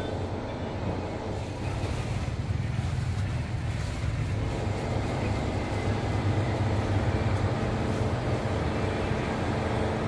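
Steady low rumble of street traffic, with wind buffeting the microphone.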